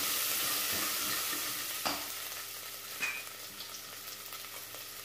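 Sliced onion and green chillies sizzling in hot oil with ginger-garlic paste in a pressure cooker, stirred with a wooden spatula. The sizzle is steady and louder for the first two seconds, then softer, with two short scrapes of the spatula about two and three seconds in.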